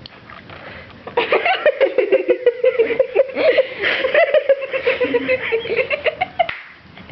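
High-pitched laughter, a long run of giggling that starts about a second in and lasts about five seconds.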